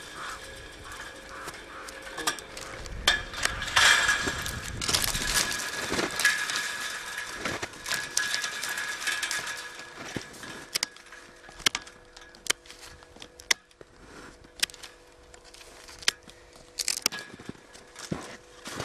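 Hand pruning shears snipping grapevine canes, with the dry cane wood crackling and snapping as it is pulled off the trellis wires. The clicks come thick and fast with rustling in the first half and as scattered single snips later.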